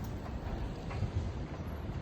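Outdoor street ambience: a steady low rumble with wind buffeting the microphone and a few faint ticks.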